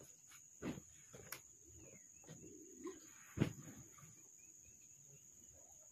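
Quiet outdoor background with a steady high insect drone, broken by a few dull thumps and a sharp click. The loudest thump, about three and a half seconds in, is a heavy sack of coffee being handled at a loaded motorbike.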